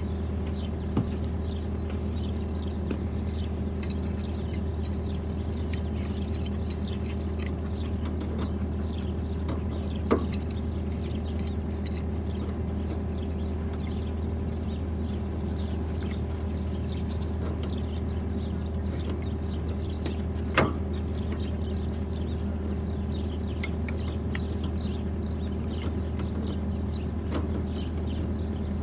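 A small motor or engine running with a steady low drone throughout, and two sharp knocks, about ten and twenty seconds in.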